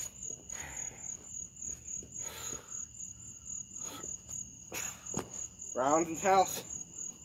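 Crickets chirping in a steady, pulsing high trill, with a few sharp taps and a short burst of a man's voice about six seconds in.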